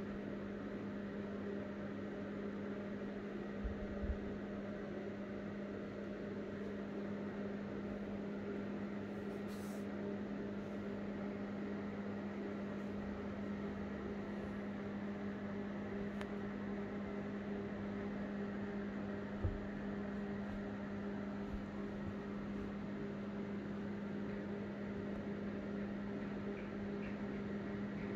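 Steady mechanical hum of a running appliance such as a fan, with an even hiss over it. A few soft low thumps come twice, about four seconds in and again around twenty seconds in.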